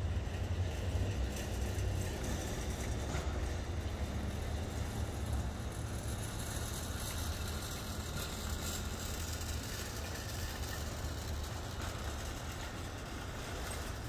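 Steady low rumble of motor-vehicle noise, with no distinct events standing out.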